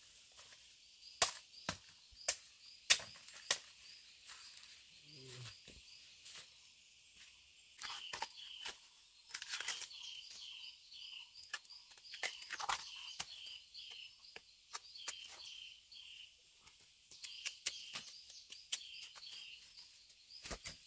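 Scattered sharp snaps and crackles, like plant material being torn or broken, over a rural outdoor background in which short high chirps repeat several times a second.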